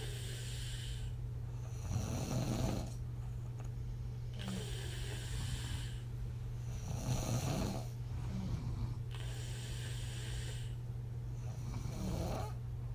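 A woman asleep on her back snoring, each exhale puffing out through slack lips with a flutter. Three slow breaths about five seconds apart, over a steady low hum.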